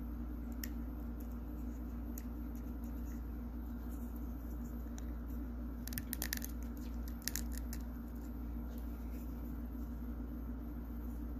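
Small plastic figure parts clicking as they are handled and pressed together, with a quick cluster of clicks about six seconds in and another just after seven, over a steady low hum.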